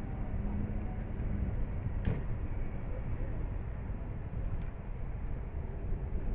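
Fire engine's diesel engine idling at the scene, a low steady rumble, with a single sharp click about two seconds in.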